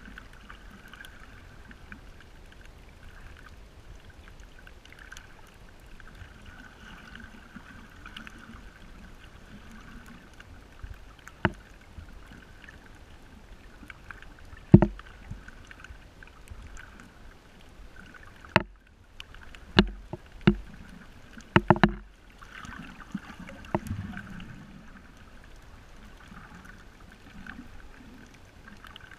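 Muffled underwater ambience recorded below the surface on a shallow reef: a steady watery hiss with a faint high hum. Several sharp clicks or knocks break it, clustered between about 11 and 24 seconds in, the loudest about 15 seconds in.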